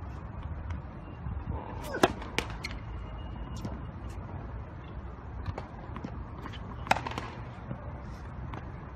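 Tennis ball struck hard by rackets: two sharp hits with a brief ring, about two seconds in and near seven seconds, with lighter taps of the ball and shoes in between.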